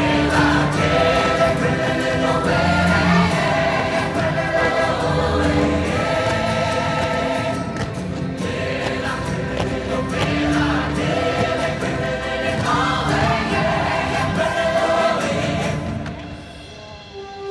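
Fireworks show soundtrack: a choir singing over music, loud and continuous, with the pops and crackles of bursting fireworks mixed in. The music dips briefly near the end.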